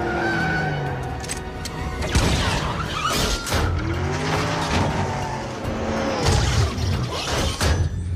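Car-chase film soundtrack: car engines revving, rising and falling in pitch, and tyres skidding over background score music, with several sudden loud hits.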